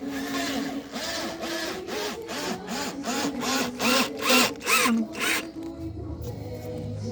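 Electric drill run in a series of short bursts, about two or three a second, louder towards the end and stopping a little over five seconds in.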